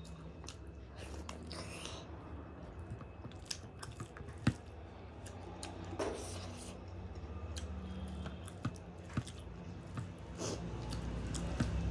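Close-up eating sounds of rice and egg curry eaten by hand: moist chewing and lip smacks, with fingers squishing and mixing rice on the plate. Scattered short sharp clicks run through it, the loudest about four and a half seconds in, over a steady low hum.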